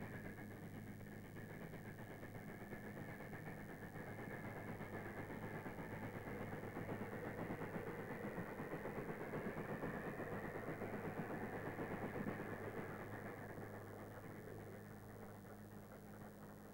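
Narrow-gauge steam train running, growing louder to a peak past the middle and then fading away, over a steady electrical hum.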